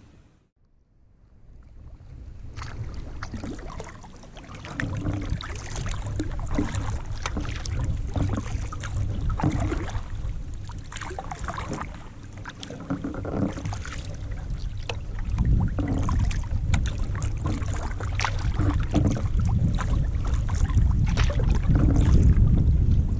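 Kayak paddling: irregular splashes and water noise from the paddle strokes, with wind buffeting the microphone as a low rumble. It starts almost silent and builds up over the first few seconds, getting louder toward the end.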